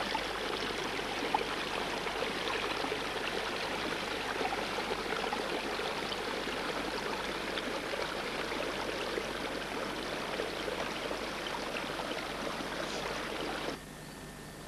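Steady rush of fast-flowing river water from a rapid, starting abruptly and cutting off suddenly near the end.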